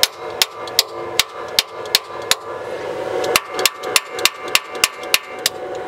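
A tool tapping on a four-barrel carburetor, first a run of about seven taps, then after a short pause about eight quicker ones. The tapping is meant to jar the sticking float needles back onto their seats, since the carburetor is overflowing with fuel.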